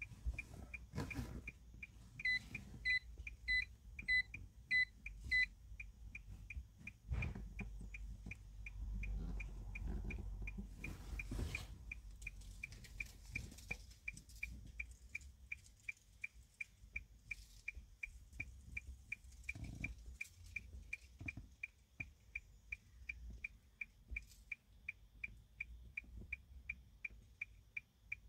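Steady, regular electronic ticking about twice a second throughout, with a run of six louder beeps about two seconds in and a few soft knocks from handling.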